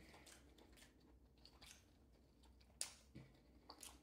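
Faint chewing of a mouthful of fried salmon and Savoy cabbage, with scattered small mouth clicks and one sharper click a little before three seconds in.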